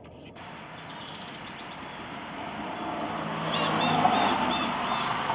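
A vehicle passing on the street, swelling to its loudest about four seconds in and then fading, while a bird chirps several times in quick succession.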